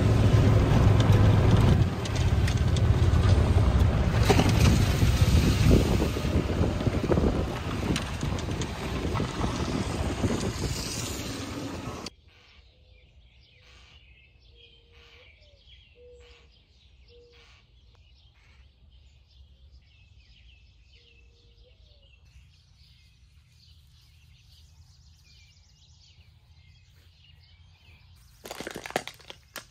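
Wind rushing over the microphone and a vehicle's low hum while riding in an open-sided cart, fading down and cutting off about twelve seconds in. Then faint bird chirps and calls in a quiet yard, with a few clicks and knocks near the end.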